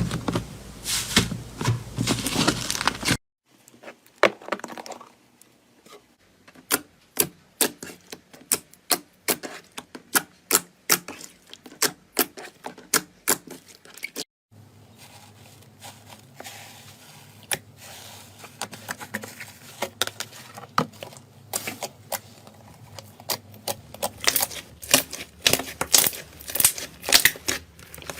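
Slime being squeezed and poked, giving rapid sharp clicks and pops. The sound breaks off abruptly about three seconds in and again about halfway, each time resuming with a different texture.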